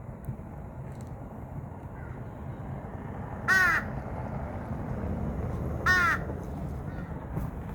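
A crow cawing twice, two short harsh calls about two and a half seconds apart, over a steady low rumble.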